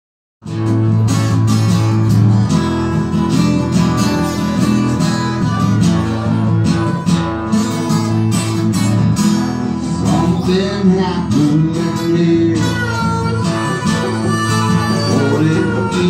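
Live acoustic jam: strummed acoustic guitars with a harmonica playing over them, starting abruptly about half a second in.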